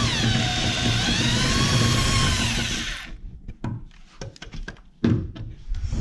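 Handheld electric grinder running against rusted steel on the car's underside, its whine sagging in pitch as it bites and recovering. It stops about three seconds in, followed by scattered clanks and knocks of handling, one louder knock near the end.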